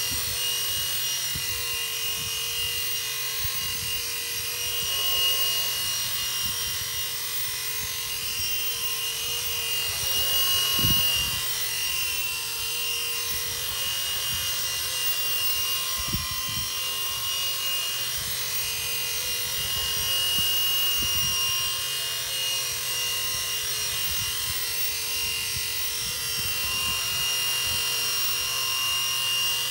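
Small electric RC helicopter (XK K123) hovering: a steady high motor whine with the whoosh of its main and tail rotors, the pitch wavering slightly as it holds position. It is running on a repaired K110S receiver whose tail-motor power FETs had burnt out, and the owner finds it flies spot-on.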